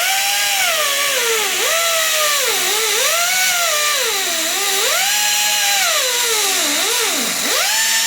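Cut-off wheel grinding a groove into the steel bearing retainer ring on a Dana 44 axle shaft, a high whine over gritty hiss. Its pitch keeps sagging as the wheel is pressed into the metal and climbing back as the pressure eases, every second or so.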